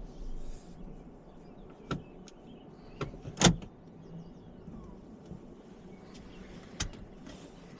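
Inside a Toyota RAV4 Hybrid's cabin at low speed: a quiet, steady low rumble from the road, with a few sharp knocks. The loudest knock comes about three and a half seconds in.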